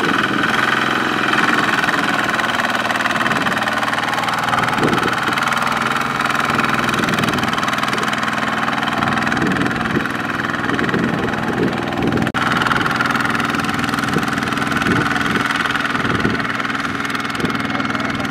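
Kubota ZT155 walking tractor's single-cylinder diesel engine running steadily under load as its mud-caked wheels churn through a muddy paddy field pulling a loaded trailer.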